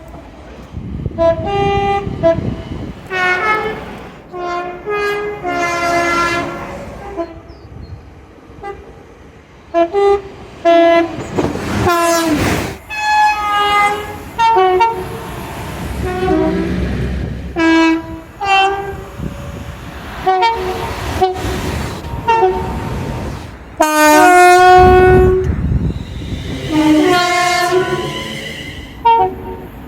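Air horns of British trains sounding one after another: many short two-tone blasts from different locomotives and units, with the rumble of the trains between them. The longest and loudest blast comes near the end.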